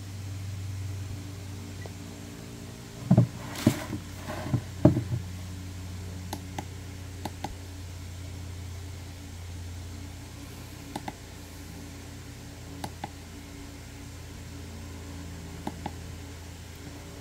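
A few loud knocks as a plastic camping lantern is handled and set down, then pairs of small clicks every few seconds: its push-button switch pressed and released to cycle the light modes. A steady low hum sits underneath.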